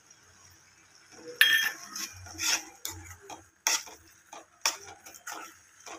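Steel slotted spatula scraping and clinking against the pan while sugar is stirred into thick carrot halwa. The strokes are irregular, about once a second, after a quiet first second.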